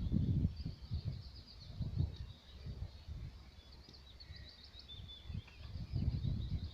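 Small birds chirping and trilling continuously, with a quick run of repeated notes about four and a half seconds in. Gusts of wind buffet the microphone with a low rumble, strongest at the start and near the end.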